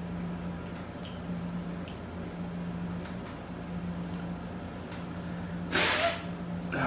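A man blowing his nose hard into a paper napkin, one loud blow lasting about half a second near the end with a second starting just after; his nose is running from spicy food.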